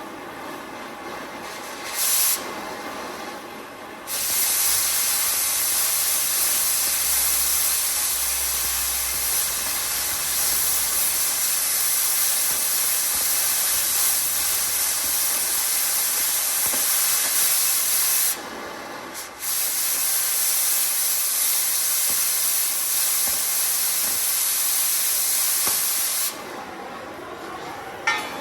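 Cutting torch blasting through steel: a short burst of hiss about two seconds in, then a long steady cutting hiss, a brief stop around eighteen seconds, and a second long cut that stops near the end.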